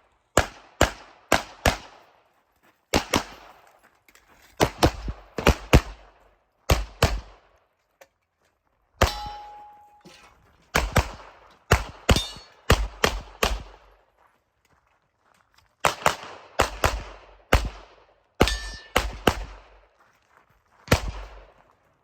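Glock G34 9 mm pistol fired rapidly in pairs and short strings during a timed stage, with pauses of a second or two between strings. A couple of the shots are followed by a brief metallic ring, as of a steel target being hit.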